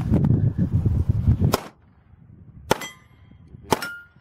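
Pistol shots at steel targets, three about a second apart, the first coming after a second and a half of low rumbling noise. The second and third shots are each answered by the clang of a struck steel plate, and the last plate rings on with a steady tone.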